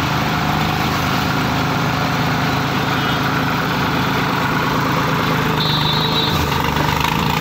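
Two diesel tractor engines, a Powertrac Euro 60 and a Sonalika 35, run steadily under load as the chained tractors pull against each other in a tug of war.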